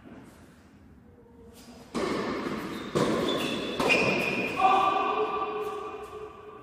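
Tennis ball struck back and forth by racquets in a quick doubles rally on an indoor court: several sharp hits about a second apart starting about two seconds in, echoing in the large hall.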